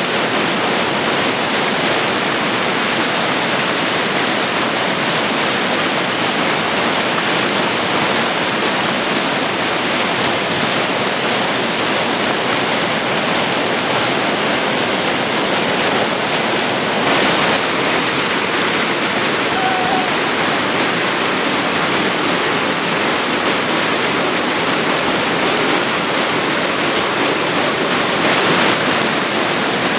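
Whitewater pouring over a river weir, a loud, steady rush, with the Vesdre running high on water released from the dam upstream.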